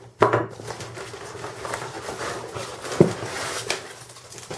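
Plastic packing straps on a cardboard box being cut and pulled off: a sharp snap just after the start and another about three seconds in, with quieter handling and rustling between.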